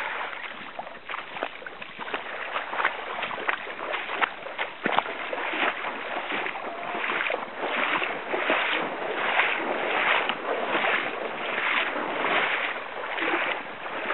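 Shallow stream water splashing and sloshing, with sharp splashes at first and then a regular run of swishing strokes a little over once a second.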